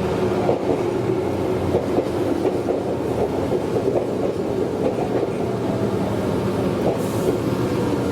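Meitetsu 100 series electric commuter train running at speed: steady rolling noise of wheels on rail with a constant motor hum and light rattling clicks.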